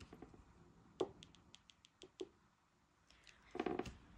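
Faint clicks and taps of a pen and hands on a tabletop, then a pen tip starting to scratch across a scratch-off savings card near the end.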